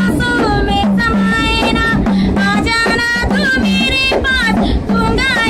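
A young woman singing a Hindi film song in a high voice, with held, wavering notes, accompanying herself on a small hand frame drum (dafli) that she strikes with her palm in a steady beat.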